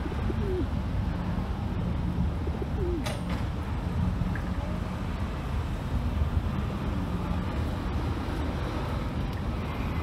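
Feral rock pigeons cooing while they feed as a flock, a few low falling coos in the first three seconds, over a steady low outdoor rumble. A single sharp click sounds about three seconds in.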